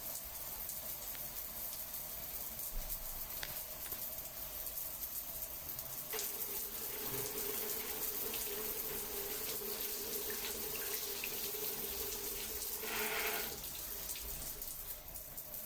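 Running water, steady throughout. A steady low hum joins about six seconds in and stops near thirteen seconds.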